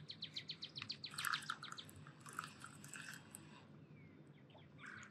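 Fishing reel clicking rapidly and evenly, about eight clicks a second, for the first two seconds while a hooked grass carp is played, then fainter scattered noise.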